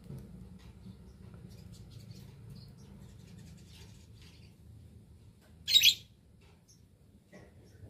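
Lovebird giving one short, loud, shrill call about six seconds in, amid faint scattered chirps and clicks.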